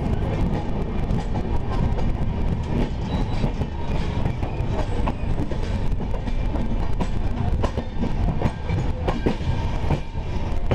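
Passenger train running along the track, heard from an open coach doorway: a steady heavy rumble with the wheels clacking over rail joints, the clacks most distinct near the end.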